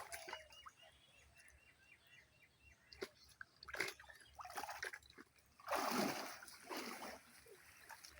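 Pond water splashing and dripping in short, scattered bursts, the loudest about six seconds in.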